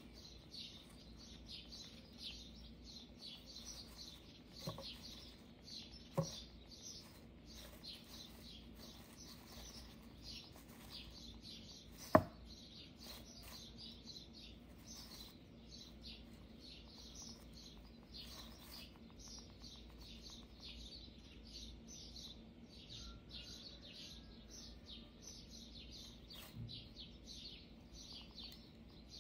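Faint, continuous dry crackling and rustling from a hamster burrowing and moving through wood-shaving bedding. Two light knocks come about five and six seconds in, and a sharper, louder knock comes about twelve seconds in.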